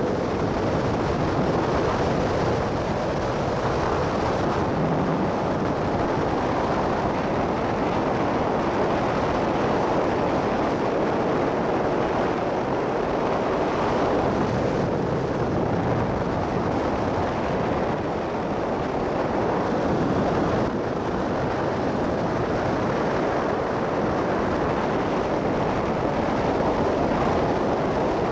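Motorcycle riding at steady speed, heard from a camera mounted on the bike: a continuous rush of wind on the microphone mixed with engine and road noise.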